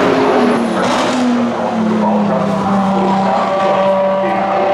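Ferrari 599XX race car's naturally aspirated V12 engine running on track, its pitch dropping over the first two seconds as the revs fall, then holding steady.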